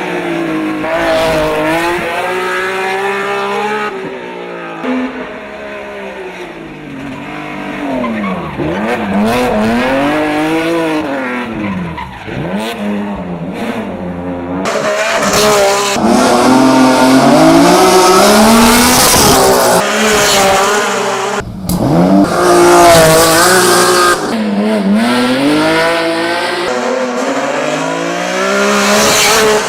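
BMW E30-based hill climb race car's engine revving hard, its pitch climbing through each gear and dropping at the shifts, again and again. The sound changes abruptly a few times, as between separate runs.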